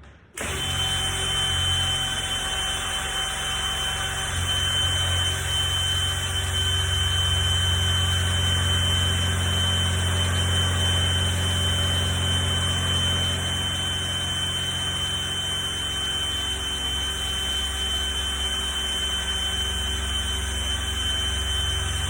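Electric drill running steadily under load, boring a large hole through a metal door, with a steady motor whine over a low hum.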